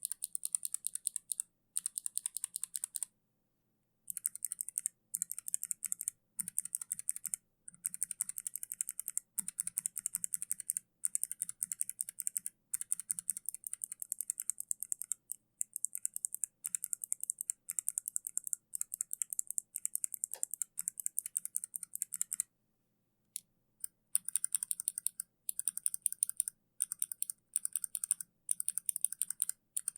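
Rapid typing on a mechanical keyboard with Kailh switches: a dense run of crisp key clicks, breaking off briefly about three seconds in and again near twenty-three seconds.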